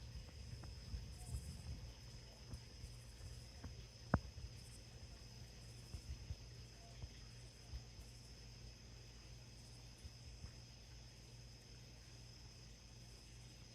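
Faint, steady chorus of insects such as crickets, a continuous high trill, over a low rumble, with one sharp click about four seconds in.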